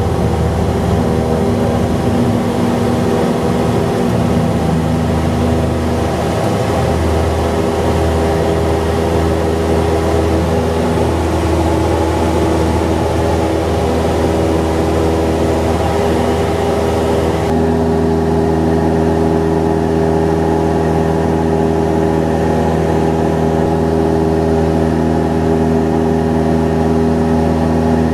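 Cessna 172 Skyhawk's piston engine and propeller at takeoff power, heard from the cockpit: a loud, steady drone through the takeoff roll and climb-out. About two-thirds of the way in, the drone turns cleaner with less hiss.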